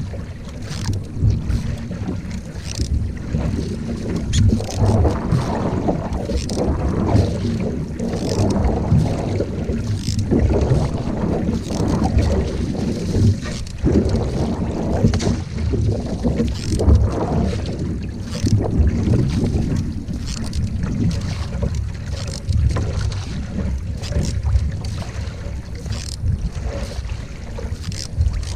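Single-blade paddle strokes driving a narrow racing canoe, with water rushing and splashing along the hull in a surge about every one and a half to two seconds. Wind on the microphone runs as a steady low rumble underneath.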